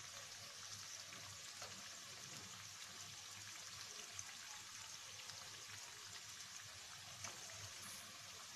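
Chana dal and banana flower vadas deep-frying in hot oil: a faint, steady sizzle.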